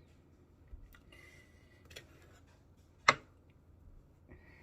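A few sharp taps or knocks over faint background noise, the loudest about three seconds in, with two lighter ones before it.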